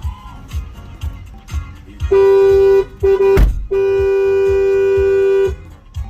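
Car horn honking three times: a short honk, a brief blip, then a long steady blast of nearly two seconds. Between the second and third honk there is a sharp thump, and background music with a steady beat runs underneath.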